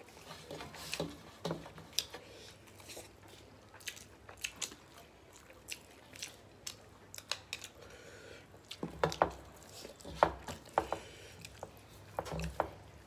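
Eating sounds: chewing, lip smacks and wet squelches of rice and chicken curry being mixed and eaten by hand, heard as irregular sharp clicks that come thicker and louder in the last few seconds.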